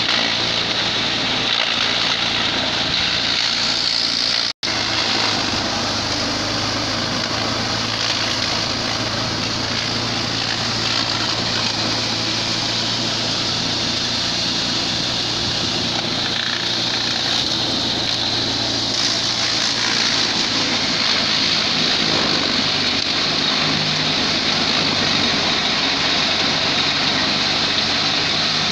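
Belt-driven hammer mill running steadily while dry maize stalks are fed in and shredded: a loud, steady noise over a low hum from its drive. The sound cuts out for an instant a little over four seconds in.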